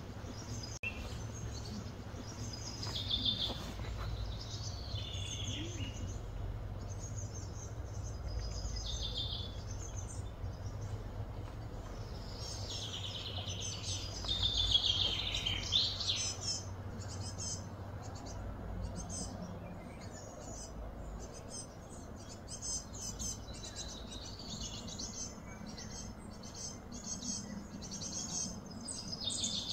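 Birds chirping and calling in short phrases, loudest around halfway through, over a steady low rumble.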